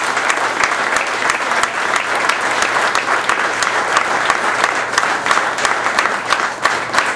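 Crowd of supporters applauding and clapping steadily in a room.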